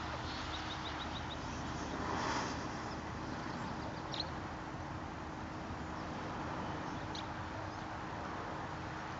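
Steady outdoor background hiss over a low hum, with faint high bird chirps: a quick run of about six near the start, then single chirps about four and seven seconds in. A brief rushing noise comes about two seconds in.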